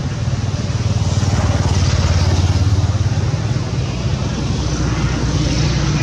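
Motor vehicle engine running, growing louder over the first two or three seconds, then holding steady.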